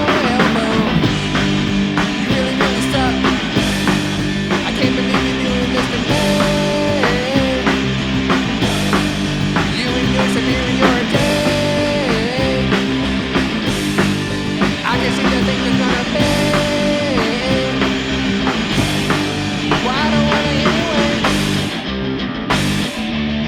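Rock band playing an instrumental passage: electric guitar, bass and drums, with a lead line of held, bending notes that comes back every few seconds. The cymbals drop out near the end.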